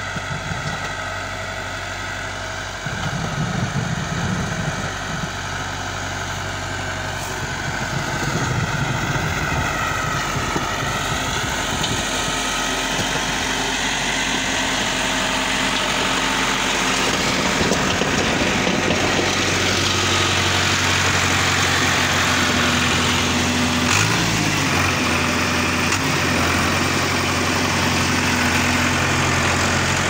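Diesel engine of a New Holland farm tractor running steadily as it plows snow with a front blade. Its note sags and climbs again about a third of the way through, and the sound grows noisier in the second half.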